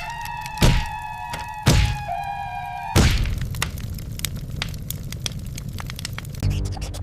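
Three heavy thuds about a second apart over a steady ringing tone that drops in pitch about two seconds in and stops at the third thud. Rapid light clicks follow.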